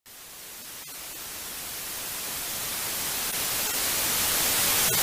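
Static hiss, like white noise, growing steadily louder, with a few faint clicks in it.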